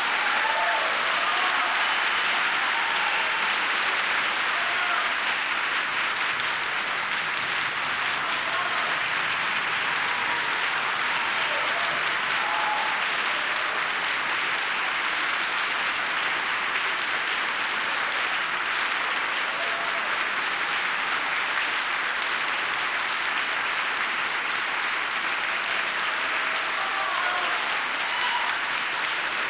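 Large audience applauding steadily at the end of an operatic aria, with a few voices calling out over the clapping.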